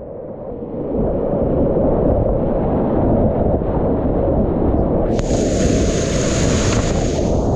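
Rushing whitewater of a river rapid, heard from a kayak heading into it; the rush gets louder about a second in. About five seconds in a brighter hissing splash joins it as the kayak drops into the foaming water.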